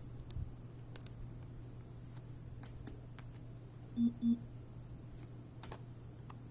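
Faint clicks and light handling of photo cards, over a low steady hum. About four seconds in come two short electronic beeps in quick succession, the loudest sound here.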